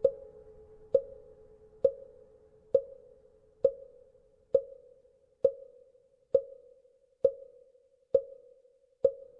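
Mõ, the Buddhist wooden fish, knocked at a steady pace of a little more than one knock a second, eleven knocks in all. Each knock leaves a short pitched ring that dies away before the next.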